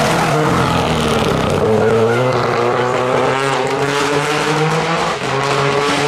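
Renault Clio rally car's engine revving hard as it goes through a bend and passes close by, the engine note falling and rising in pitch as the driver lifts and accelerates again.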